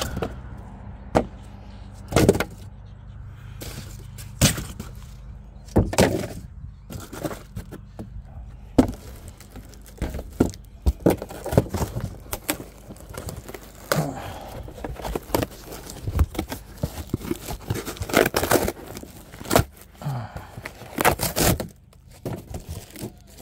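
Irregular knocks, cracks and scrapes of hard pieces being handled and pried apart, some strokes loud and ringing briefly, over a steady low hum.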